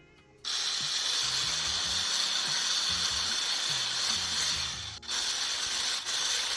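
Electric hand mixer beating butter in a bowl to soften it for buttercream icing. It switches on about half a second in and runs steadily, with a brief dip about five seconds in.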